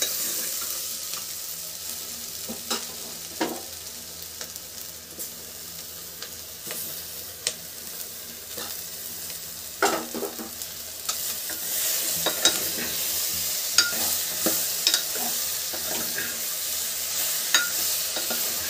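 Chopped vegetables and tomato frying with a steady sizzle in an open pressure cooker, while a metal ladle stirs them, scraping and clicking against the pot, more busily in the second half.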